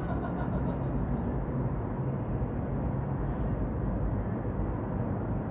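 Steady low rumble of outdoor city ambience heard from high up: distant Strip traffic with wind over the microphone.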